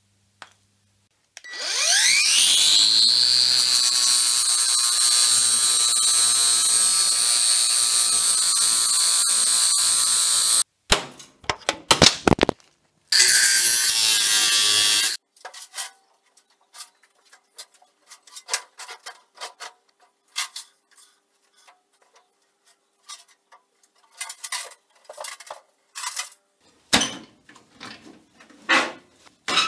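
Angle grinder with a cutoff disc spinning up with a rising whine, then running at a steady high pitch while it cuts steel for about nine seconds before stopping suddenly; a couple of short bursts and another two-second cut follow. The rest is a run of irregular sharp metal knocks and taps.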